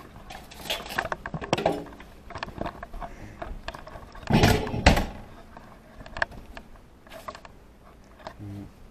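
Scattered clicks and knocks of objects being handled, with one louder clatter about four and a half seconds in.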